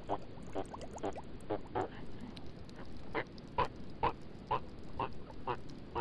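A rapid series of short animal calls, about two a second, growing louder about halfway through.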